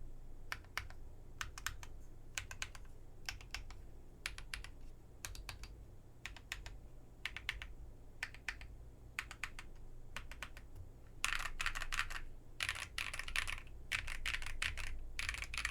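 IV Works AV3 custom mechanical keyboard with Kinetic Labs Salmon tactile switches, a POM plate and ePBT keycaps being typed on. The keystrokes come in short clusters about once a second, then about eleven seconds in turn into fast, continuous typing.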